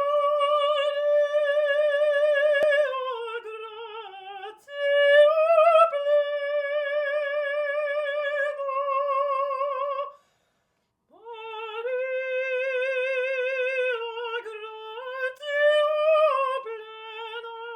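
Trained operatic soprano voice singing long sustained notes with a wide vibrato, unaccompanied, moving down in steps. The singing breaks off for about a second a little past halfway, then resumes on a slightly lower note.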